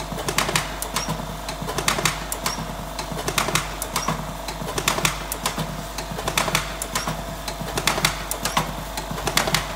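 Electric cigarette filling machine running through its filling cycle: a steady motor hum with sharp mechanical clicks, in pairs about every second and a half.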